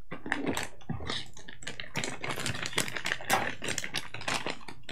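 A small plastic packaging pouch being handled and torn open, a quick irregular run of crinkling and crackling.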